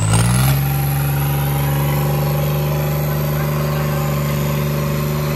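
New Holland 3630 tractor's diesel engine revving up in the first half second, then held at steady high revs while pulling a heavy load of sacks through soft dirt.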